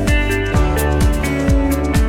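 Electronic background music with a steady kick-drum beat, about two beats a second, under held synth notes.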